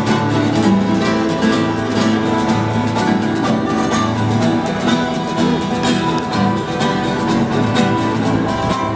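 Acoustic guitar strummed in a steady, even rhythm of chords, with no singing.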